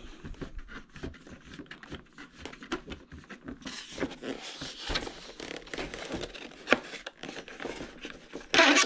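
Irregular small clicks, scrapes and rustles of a screw being turned by hand into the AeroScout RC airplane's plastic and foam parts, the screw not biting into its hole. A brief louder rustle comes near the end.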